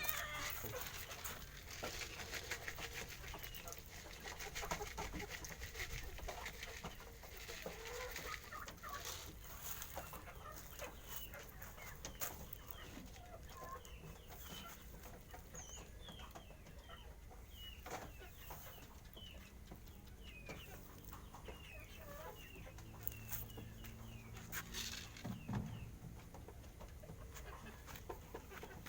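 Bird calls: runs of short chirps, thickest in the middle, over scattered faint clicks.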